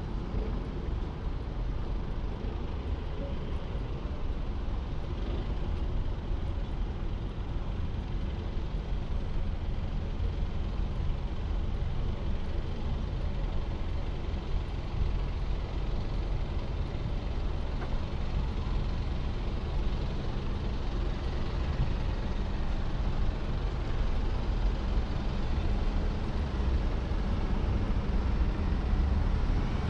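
City street traffic: motor vehicle engines running close by, a steady low engine sound that grows louder near the end.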